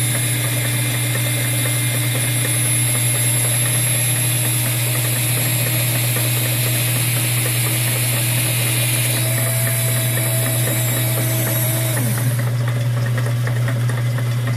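A lathe running steadily with the high whine of a Dremel rotary tool (die grinder) whose cutter is boring a hole into a spinning rubber stopper. About twelve seconds in the grinder's whine cuts off and its pitch falls away as it winds down, while the lathe keeps running.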